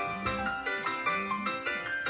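A smartphone ringtone melody playing: quick piano-like notes over a low note that repeats about once a second.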